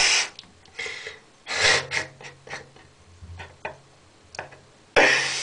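Short, irregular puffs of strained breath from a person squeezing a raw egg hard in the fist, the loudest near the end. No crack of the shell is heard: the egg holds.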